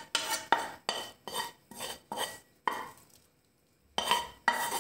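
Wooden spatula scraping and knocking fried onion and carrot out of a frying pan into a soup pot. There are about ten quick strokes, some leaving a short ring from the pan, with a pause about three seconds in.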